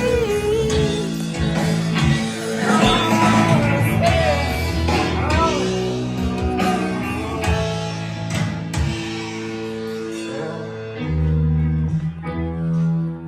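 Background music: a song with a singing voice over guitar, its high notes thinning out towards the end.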